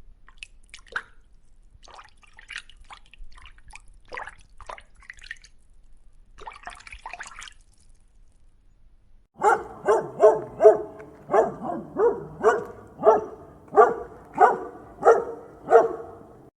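Faint water dripping and splashing for the first half, then a dog barking repeatedly, about fourteen loud barks at roughly two a second.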